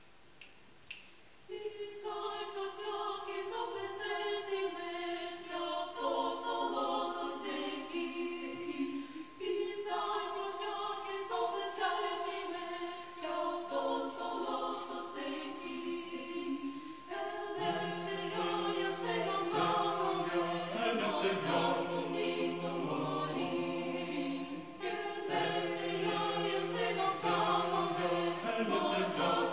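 Mixed chamber choir singing a cappella: the upper voices start about a second and a half in, and the lower voices join a little past halfway.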